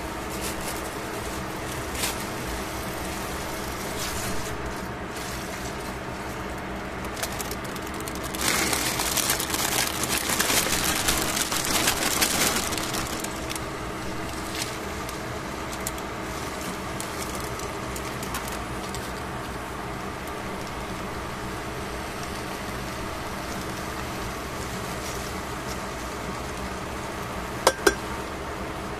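Chopped cabbage and carrot going into a hot stainless steel pot of pork, a loud crackling that lasts about four seconds, over a steady background hum. Near the end, two sharp metallic clinks of tongs against the pot.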